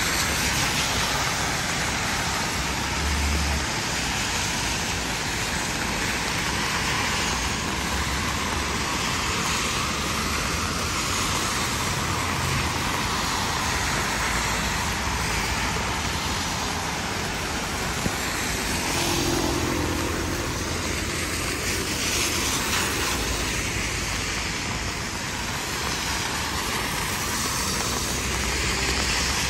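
Heavy rain falling, a steady dense hiss, with a low rumble underneath.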